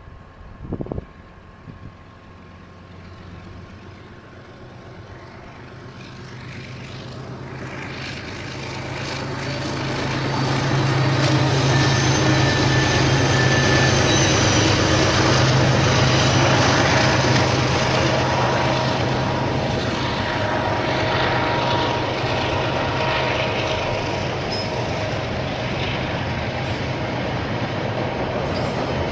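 KiwiRail diesel train approaching and passing. A low engine drone grows louder over about ten seconds and holds at its loudest for several seconds, then eases to a steady rumble as the wagons roll by. Two brief knocks come right at the start.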